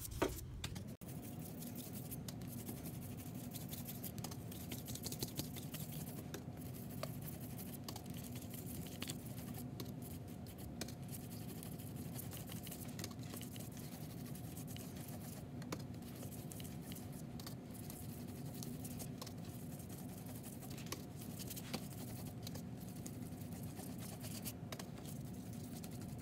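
Faint, irregular scratching of a flat paintbrush's strokes as it spreads wet liquid tempera across a sheet of paper, over a steady low hum of room noise.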